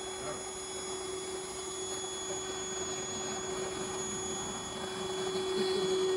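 Shop vacuum powering a bucket-style bee vacuum, running steadily with a motor whine and rushing air, getting a little louder near the end.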